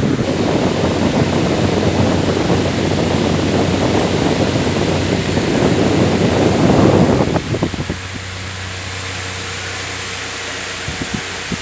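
Electric fan running: a loud, rough rushing of air that drops away about seven seconds in, leaving a quieter, even hum with a steady low tone and a few faint ticks near the end.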